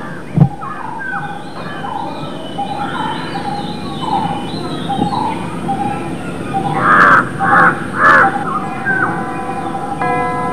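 Outdoor birdsong: small birds chirping throughout, with a crow cawing three times about seven to eight seconds in. A short thump sounds just after the start, and steady bell-like tones begin near the end.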